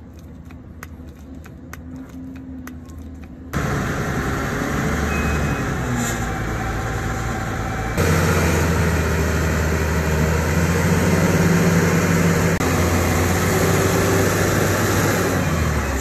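Diesel engine of a Lonking LG850 wheel loader running under work, a loud steady heavy engine note that steps up twice. For the first few seconds, quieter, a faint regular clicking from a hand grease gun being pumped into the bucket pin.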